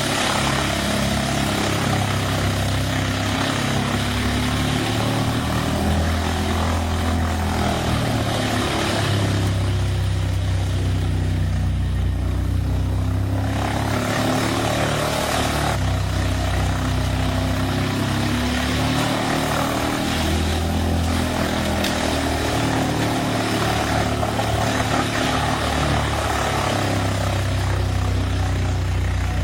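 Truck-mounted wood chipper's heavy engine running steadily, its pitch stepping up and down as it takes and sheds load, under a rough grinding noise that eases for a few seconds midway.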